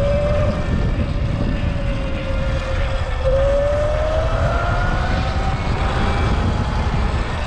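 Strong wind buffeting the microphone while riding a Sur-Ron X electric dirt bike, over the thin whine of its electric motor. The whine sags a little, then about three seconds in rises steadily in pitch as the bike speeds up.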